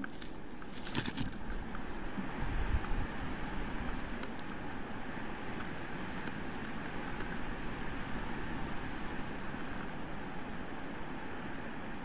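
Steady rushing of wind through the pine treetop and across the nest camera's microphone, with a brief crackle about a second in and a low buffet of wind a couple of seconds later.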